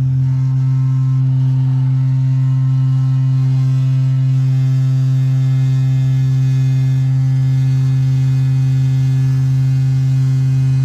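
A.O. Smith gas water heater making a loud, steady, deep foghorn-like hum. This is harmonic vibration from the burner: a nuisance, not a danger.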